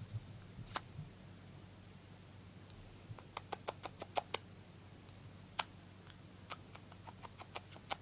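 Small sharp clicks at close range, a quick run of about seven in just over a second around three seconds in, then scattered ones: a pet cockatiel's beak against a person's lips and fingers as its head is kissed and scratched.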